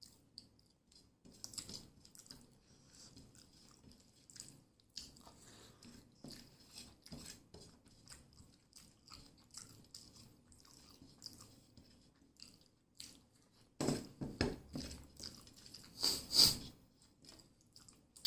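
Close-miked chewing of a meal of rice and fried fish, with many small wet mouth clicks throughout. Two louder stretches of chewing sound come near the end.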